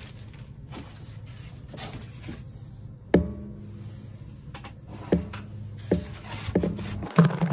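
Hands handling the foam packing inside a cardboard box, giving a few sharp knocks and rubs over a steady low hum, with a louder rustle near the end.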